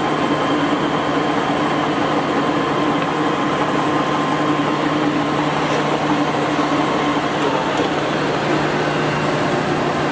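Polamco engine lathe running under power: a steady hum of the motor and gearing, with a high whine in it that fades out about seven seconds in.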